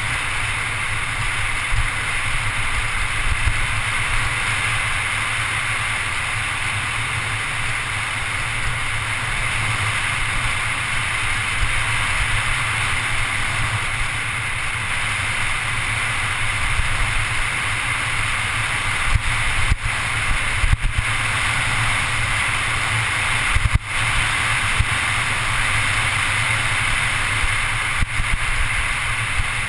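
Steady rush of wind on a GoPro HD camera's microphone, with low tyre rumble from a Scott Scale 10 mountain bike rolling fast downhill on asphalt. A few sharper bumps come through around two-thirds of the way in.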